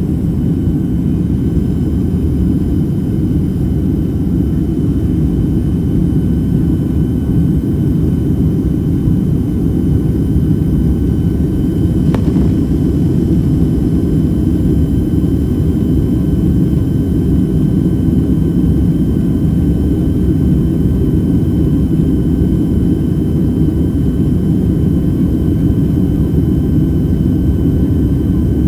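Steady cabin noise of a Boeing 767-300ER in flight: a low roar of engines and airflow with a faint, high, steady whine over it.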